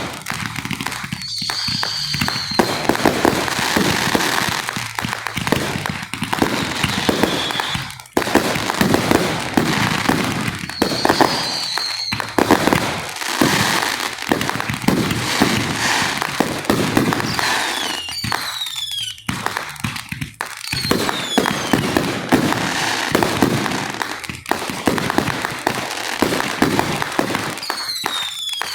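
Fireworks display: a dense, continuous barrage of bangs and crackling, with high whistles from whistling shells several times, some gliding down in pitch.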